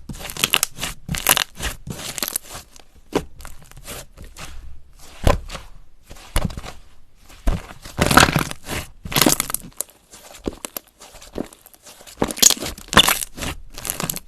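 Slime being squeezed and pressed by hand, giving a run of irregular crunching and crackling sounds, each squeeze a short burst, louder around the middle and near the end.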